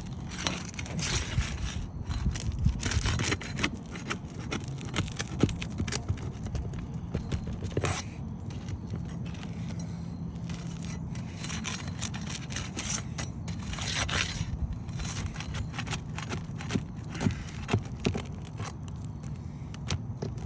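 A roofing pry bar scraping and clicking under asphalt shingles as roofing nails are worked loose and pulled, in irregular strokes over a steady low rumble.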